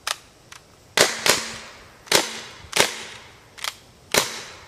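Umarex TR50 .50 caliber CO2 revolver firing a quick string of sharp shots, six or so, about one every half second to a second, each crack followed by a brief fading tail.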